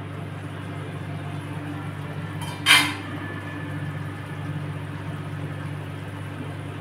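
A stainless-steel pan lid is lifted off a pot of curry, with one brief metallic clatter about two and a half seconds in. A steady low hum runs underneath.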